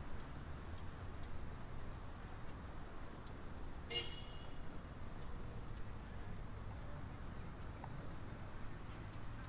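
Street ambience with a steady low traffic rumble, and one short car horn toot about four seconds in.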